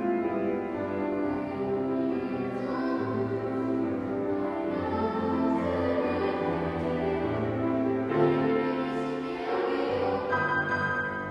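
Music: a choral song sung with instrumental accompaniment, held notes over a moving bass line.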